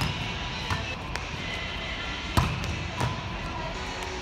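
Volleyballs being hit and bouncing on a hardwood court: a loud smack about two and a half seconds in, a softer one half a second later, and a couple of faint knocks earlier, over steady gym background noise.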